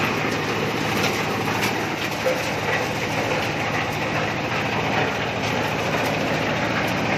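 Corn sheller machine for unhusked corn running steadily on a test run: a low engine hum under a constant dense mechanical noise.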